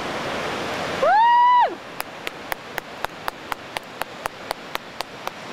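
Surf and wind noise, then about a second in a person's single high hoot that rises and falls. Right after it the surf noise drops away and a run of about a dozen sharp clicks follows, roughly four a second.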